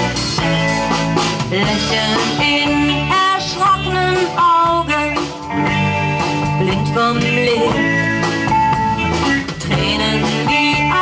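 Live band playing an instrumental passage: electric guitars over bass, with a lead line of bent notes.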